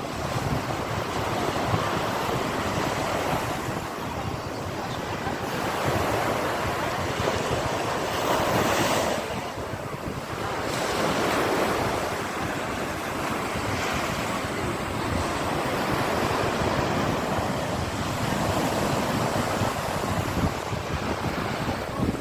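Sea waves breaking and washing on the shore, a continuous surf that swells and eases every few seconds, with some wind.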